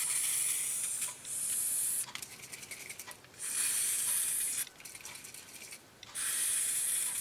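Aerosol can of label and adhesive remover sprayed in several short bursts, each a hiss of one to two seconds, with light clicks in the gaps between them. The can is nearly empty but still spraying.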